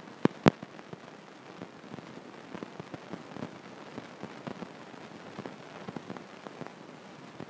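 Stylus tapping and writing on an iPad's glass screen: two sharp taps about half a second in, then a run of faint scattered ticks and scratches.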